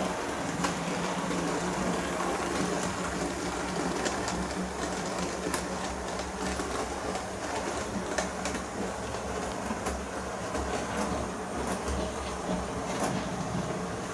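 Hornby model locomotive running on model railway track: a steady small-motor hum with scattered clicks as the wheels run over the rail joints.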